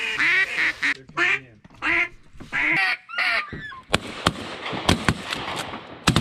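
A duck call blown close by, giving a run of loud mallard-style quacks, about five a second at first, then slowing and stopping about three and a half seconds in. After that come a few sharp clicks and knocks.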